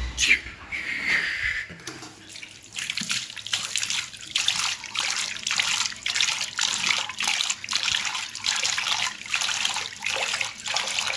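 Water running from a tap into a bathroom sink while a man washes his face, splashing water up in quick strokes about twice a second. A knock of handling comes at the start.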